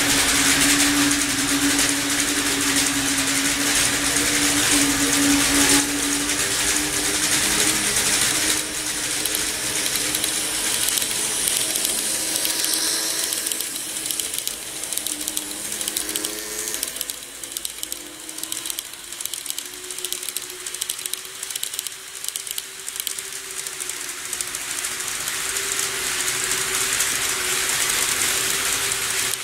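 KATO E233 series 3000 model train running on the layout track: a steady electric motor hum over the hiss and rattle of its wheels on the rails. The sound dips in the middle and swells again near the end.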